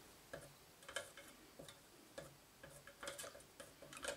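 Metal spoon stirring in a small metal pot of melted wax and petroleum jelly, making a series of faint, irregular clicks against the pot.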